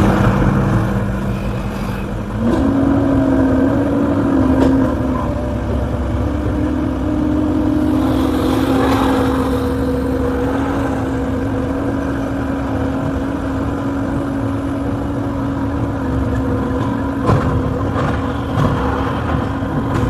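Excavator's diesel engine running; its pitch steps up about two seconds in and then holds steady at working revs, with a couple of knocks near the end.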